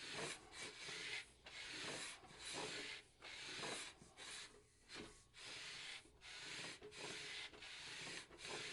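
Sandpaper on a sanding block rubbed back and forth along a wooden guitar fretboard to put a radius on it, in steady strokes of about one a second.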